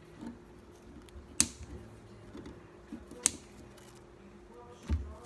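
Two sharp snips of hand clippers cutting the metal braided sleeving around a light fixture's wires, about two seconds apart, with a few lighter clicks of the tool between them and a soft knock near the end.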